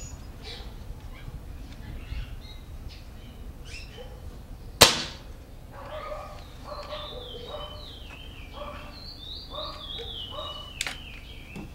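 A single sharp crack of a spring-piston air rifle shot in 5.5 mm, about five seconds in, with a short ringing tail. Birds sing in warbling, stepped phrases through the second half.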